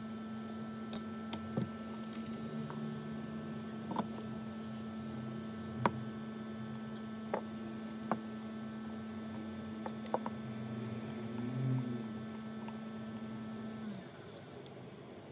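Steady electrical hum from workbench equipment with scattered sharp, light clicks and taps of small tools. The hum cuts off suddenly near the end.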